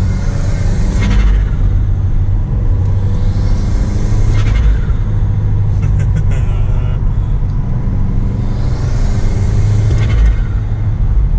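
2018 Subaru WRX's turbocharged flat-four engine running under load with a steady low rumble. Three times an intake and turbo whoosh swells and then cuts off as the throttle closes, with the Boomba bypass valve venting.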